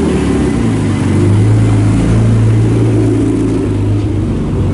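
BMW E30 rally car's engine idling steadily and loud, close by.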